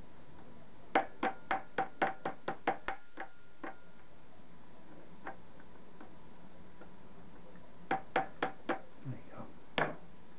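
Light metal-on-metal taps of a small hammer on the split pin in the propeller hub of a British Seagull outboard, each with a faint ring. A quick run of about a dozen taps, a single tap midway, then another run of about six taps ending in one sharper strike near the end.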